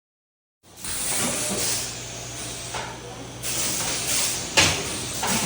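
Steady loud hiss over a low hum, beginning abruptly after a short silence, with one sharp click about four and a half seconds in.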